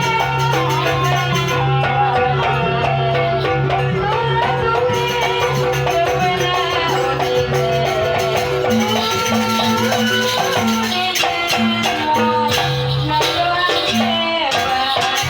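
Live jaranan accompaniment music for a sampak piece: a Javanese gamelan-style ensemble playing a continuous, loud, ornamented melody over steady held tones, with rattling percussion.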